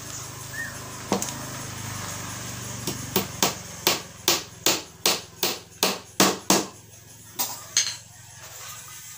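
Hammer driving a 4 cm nail into the 12 mm plywood side of a speaker box: one knock about a second in, then a quick run of about a dozen sharp blows, roughly three a second, and two lighter taps near the end.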